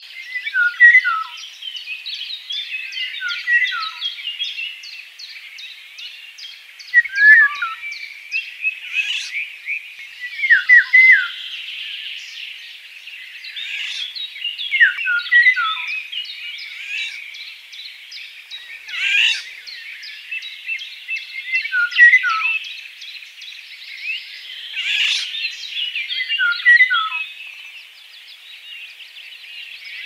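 Eurasian golden oriole singing short fluty whistled phrases that fall in pitch, repeated every few seconds, over a continuous chorus of other small songbirds chirping.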